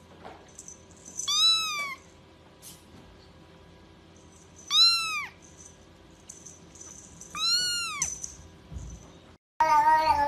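A grey kitten mewing three times: short, high-pitched mews that rise and fall, a few seconds apart. Near the end, a louder, lower cat call begins.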